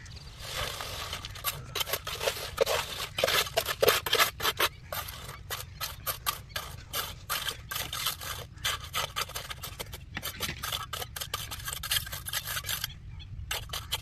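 Mason's trowel scraping and smoothing wet concrete on top of a brick-edged beam, in rapid short strokes that break off briefly near the end.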